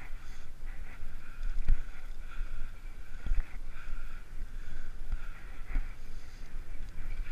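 Wind rushing over a bicycle-mounted action camera's microphone at about 30 km/h, with low rumbling gusts swelling several times, over a steady hum of bicycle tyres rolling on asphalt.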